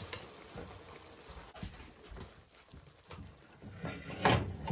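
Minced-meat and vegetable sauce simmering in a frying pan with faint, scattered little pops as it settles after the heat is switched off, then a loud clunk of the pan against the gas hob about four seconds in.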